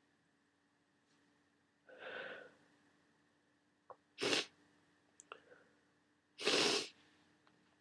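A person with a cold takes a breathy intake about two seconds in, then sneezes twice in short, loud bursts, the second one a little longer.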